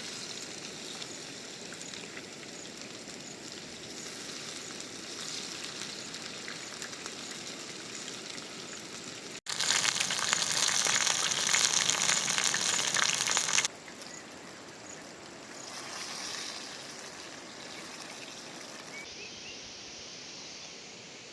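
Steady rushing water and rain. Between two abrupt cuts in the middle there is a spell of about four seconds of much louder, dense spattering noise.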